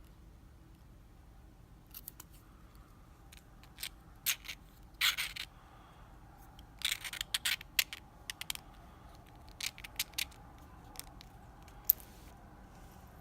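Small metal clicks and brief scrapes of tools working on a small Abus/Brady 71/40 lockout-tagout padlock, irregular and spaced out, with two short scraping runs and a sharp tick near the end.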